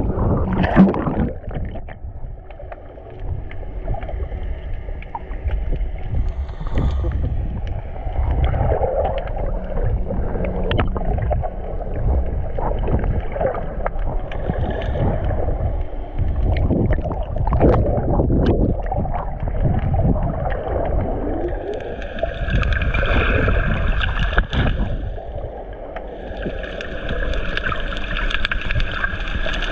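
Underwater sound from an action camera held below the surface while snorkeling: a muffled low rumble of moving water with scattered clicks and bubbling. Near the end a brighter hiss comes in twice.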